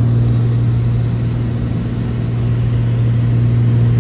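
Steady low drone of the Cessna T310R's twin turbocharged six-cylinder engines and propellers, heard inside the cabin in flight.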